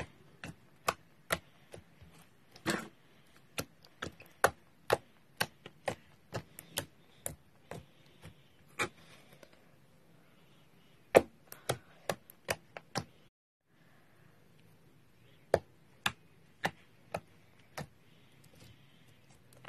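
Clear slime squeezed and pressed by hand, giving irregular sharp clicks and pops as trapped air bursts, about two or three a second, in two runs with a pause between.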